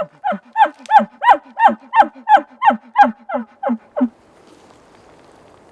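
Bull elk chuckling: a rapid run of about a dozen short, loud grunting calls, about three a second, each a falling high note sounded over a low growl. The series stops about four seconds in.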